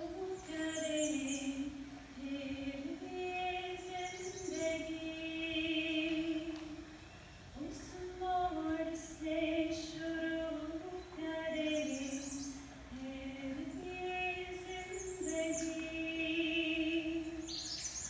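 A woman singing a ghazal in Urdu, unaccompanied, in long held notes with small ornaments and a short break between phrases, over the steady sound of a flowing river. It is a recording played back over the hall's speakers.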